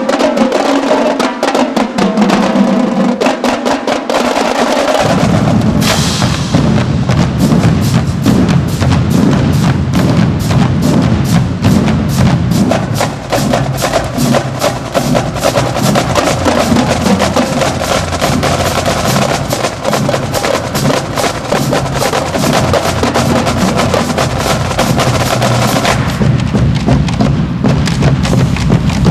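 Marching band drumline playing: snare drums and tenor drums beating a fast, dense cadence, with deep bass drum beats coming in about five seconds in.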